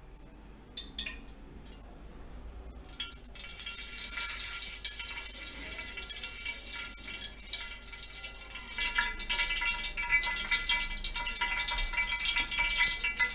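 Liquid poured from glasses into a wok on a gas stove: a few light knocks at first, then a steady hissing sizzle as it meets the hot pan, growing louder about nine seconds in.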